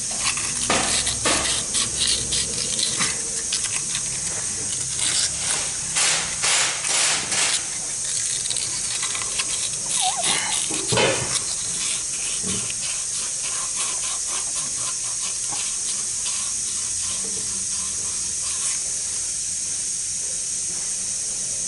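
A hand working a replacement axle bushing into the aluminium axle bore of a Ford 6F35 transmission case: a busy run of short scrapes and knocks for the first eight seconds or so, then only a few. A steady high hiss lies under it all.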